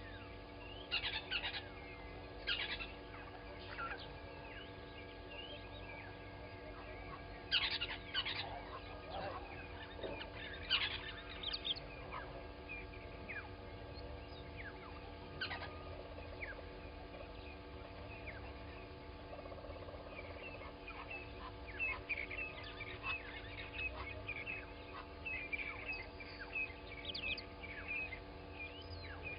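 Wild birds calling in the morning: many short calls and chirps, a few louder bursts among them, over a faint steady hum.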